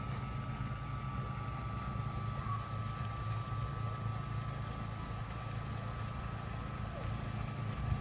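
Steady low motor hum with a constant thin whine above it, unchanging throughout.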